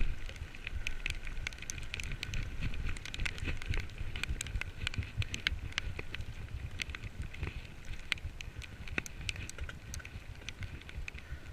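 Riding a bicycle in heavy rain: many irregular raindrop ticks close to the microphone over a steady low rumble.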